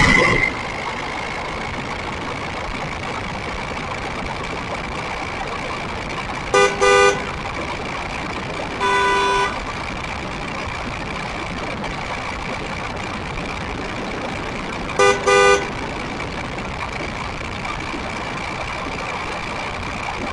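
Electric RC buggy's motor and drivetrain whining at a steady pitch while cruising, with tyre and wind noise on the onboard camera. A horn toots twice about six and a half seconds in, once longer about nine seconds in, and twice more near fifteen seconds.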